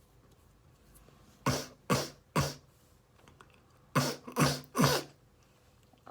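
Two runs of three short, sharp, forceful bursts of breath from a person in an allergy sneezing fit, the bursts about half a second apart and the second run about two and a half seconds after the first.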